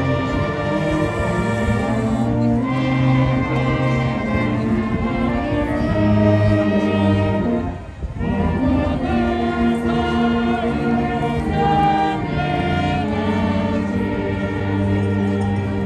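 A band playing a slow, sustained tune with many voices singing along, a school alma mater sung by the players with helmets raised. The sound breaks off briefly about eight seconds in.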